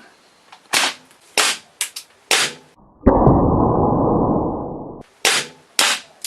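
Airsoft pistol fired in single shots, about four in quick succession, then a loud rushing noise for about two seconds that cuts off suddenly, then three more shots as the magazine runs empty.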